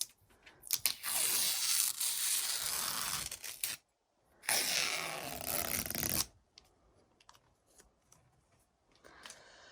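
Tape being peeled away from a freshly smoothed bead of chinking or caulk along a log wall, in two long tearing pulls of about two to three seconds each.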